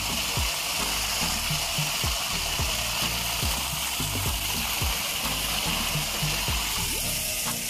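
Water pouring steadily over the lip of a small stone garden waterfall and splashing into its pool. Underneath, music with a thumping bass beat plays.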